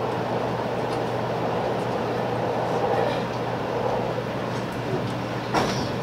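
Cabin running noise of a 500 series Shinkansen just pulling out of the station: a steady rumble with a low, even hum underneath, and one sharp knock about five and a half seconds in.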